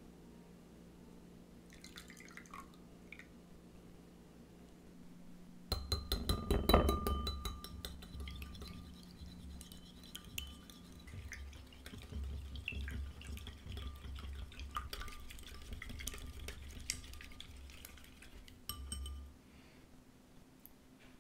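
A small metal whisk beating raw eggs and milk in a ceramic bowl: rapid clicking of the wires against the bowl over a low sloshing of the liquid. It starts about six seconds in, is loudest at first, and stops shortly before the end.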